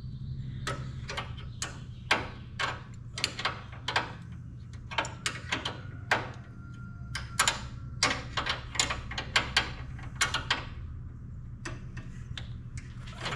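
Irregular metal clicks and knocks of a wrench working a nut up the threaded end of a sawmill edger's control cable, some in quick runs, over a steady low hum.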